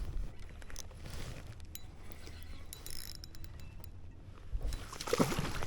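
Fishing reel being cranked to bring in a hooked fish, a run of small mechanical clicks from the reel, with a louder noisy burst about five seconds in.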